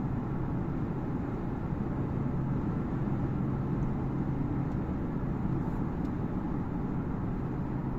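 Cabin noise inside a fully electric Genesis GV70 SUV cruising at 100 km/h: steady road and wind noise with a low hum, about 61 dB on the sound meter. This is the untreated interior before sound deadening.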